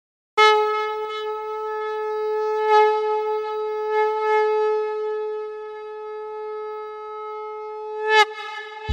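Conch shell (shankh) blown in one long steady note of about eight seconds, swelling a few times, then bending down in pitch as it ends, with a softer tail.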